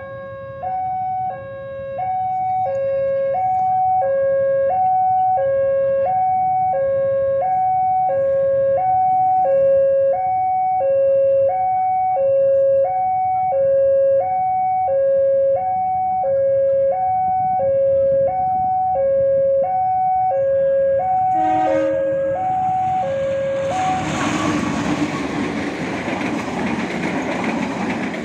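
Railway level-crossing warning alarm sounding a two-tone electronic signal, alternating a higher and a lower tone about once a second. It stops about 24 seconds in, and a passenger train then runs over the crossing with a steady noise of wheels on rails.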